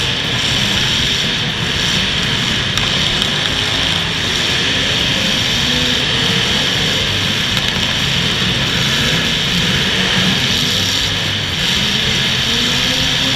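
Demolition derby cars' engines running loud, their pitch rising and falling as they rev, over a steady din.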